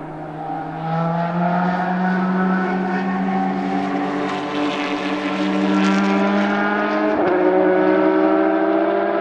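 Audi A4 DTM race car's naturally aspirated 4.0-litre V8 accelerating past, its note rising steadily, with a quick upshift about seven seconds in, after which it climbs again.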